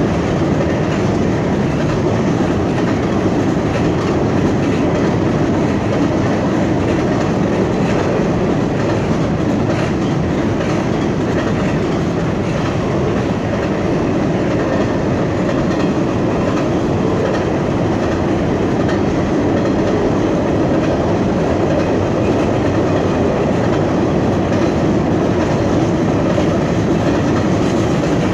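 Double-stacked intermodal container cars of a freight train rolling across a steel trestle bridge: a loud, steady rumble of steel wheels on the rails and the bridge deck, unbroken throughout.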